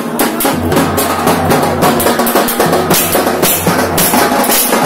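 A band of hand drums played with sticks in a fast, dense rhythm: cylindrical steel-shelled drums slung from shoulder straps, together with a round frame drum. A low steady hum runs underneath from about half a second in.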